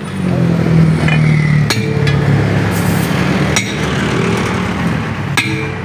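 A motor vehicle engine running close by, steady and loud. Over it come about four sharp metal knocks: a hammer striking a tool driven between a bus tire's bead and its steel rim to break the bead loose.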